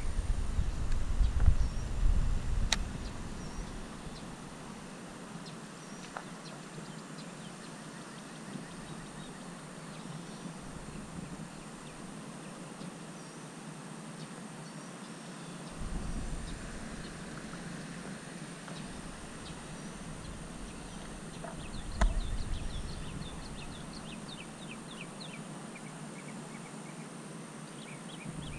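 Outdoor pond-side ambience: small birds chirping in short, scattered calls, with wind gusting on the microphone for the first few seconds and again briefly later.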